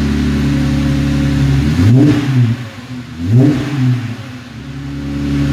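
2020 Jeep Gladiator's 3.6-litre V6 idling through an aftermarket Borla twin-tip exhaust. It is blipped twice, about two seconds in and again about a second later, each rev rising and falling back to idle.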